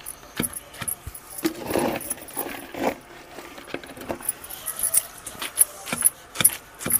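Wooden pestle pounding a wet tamarind and red chilli paste in a stone mortar: a run of irregular strikes, with the jingle of glass bangles on the pounding wrist.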